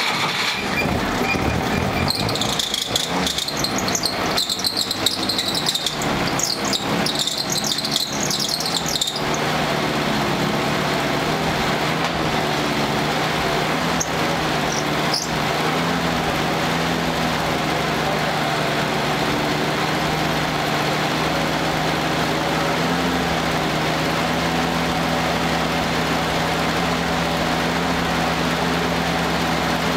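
1946 Willys CJ2A's four-cylinder flathead engine running unevenly with a high squeal for about the first nine seconds, which the owner wonders is the belt. It then settles into a steady idle.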